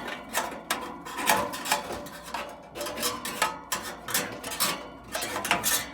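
Metallic scraping and clanking, a few strokes a second with a ringing tone, as the seized condenser fan is worked by hand; the fan motor is locked up.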